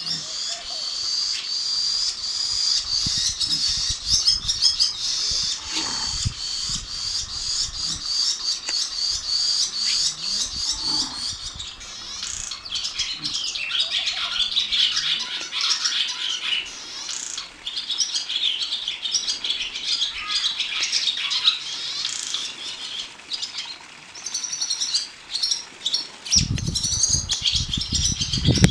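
A flock of perched barn swallows twittering, many high chirps and warbles overlapping without a break. A low rumble joins in near the end.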